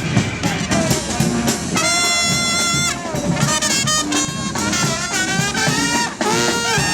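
Brass marching band playing, with trumpets and trombones over drums. The horns hold one long note about two seconds in, then play shorter phrases.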